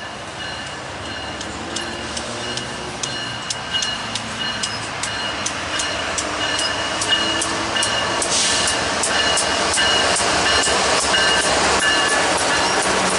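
BNSF freight train's lead diesel locomotives approaching and rolling past, growing steadily louder. A steady run of clicks from the wheels on the rail and a thin high whine that comes and goes run through it, with a brief rushing noise about eight seconds in as the locomotives come alongside.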